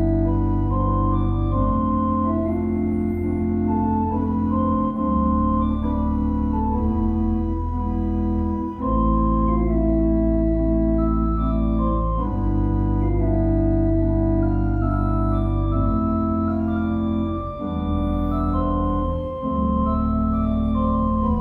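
Small pipe organ played with sustained full chords over deep pedal bass notes, the chords changing every second or two, with a few brief breaks between phrases.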